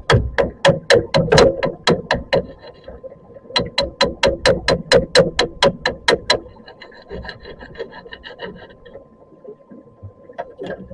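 Rasping scraping strokes, about four a second, in two runs with a short pause between them, followed by a fainter run of fine ticking.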